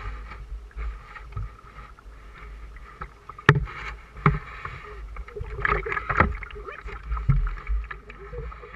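Canoe being paddled on a river: paddle strokes splashing and water washing along the hull, with a sharp knock about three and a half seconds in and a cluster of louder splashes around six seconds.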